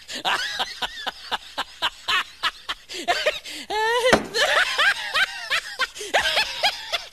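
A person laughing hard in quick repeated bursts, several a second, breaking into higher-pitched squealing laughs about halfway through.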